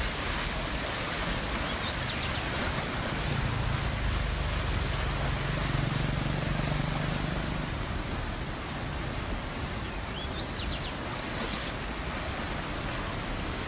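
Heavy rain falling, a steady hiss. A low engine-like hum rises and fades in the middle, and short high chirps come twice.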